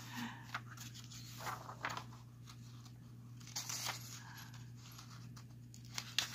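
Pages of an old paper magazine being handled and turned by hand: a few soft, short rustles of paper over a low steady hum.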